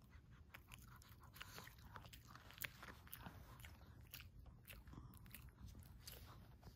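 A Shih Tzu chewing a small hard dog treat, with faint, irregular crunches.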